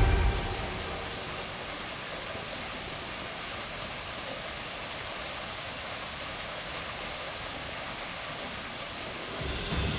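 Steady rush of water, an even hiss with little low rumble.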